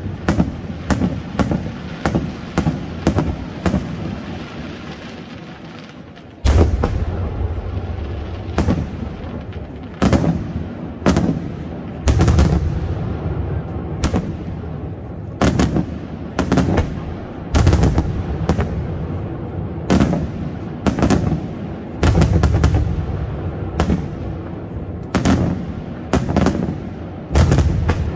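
Aerial firework shells bursting in a steady series, each a sharp bang with a rolling rumble after it. A quick run of bangs dies down into a lull, then a loud bang about six seconds in starts the bursts again, one every second or two.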